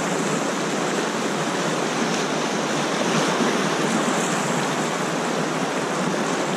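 Class III whitewater rapid rushing around an inflatable raft: a steady, dense wash of churning water and splashing.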